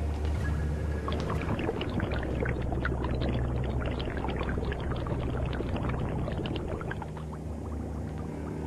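Liquid bubbling and gurgling, many small pops crowding together for most of the time and thinning out near the end, over a low steady hum.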